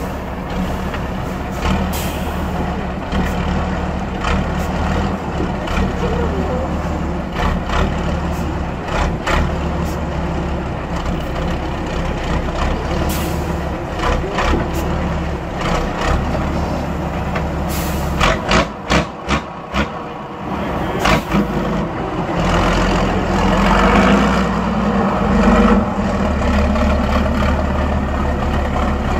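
Six-wheeled trial truck's diesel engine running at low revs as it crawls through rough ground, with many short sharp hissing or snapping sounds over it, including a quick run of about five about two-thirds of the way through. The engine works harder and louder in the last third.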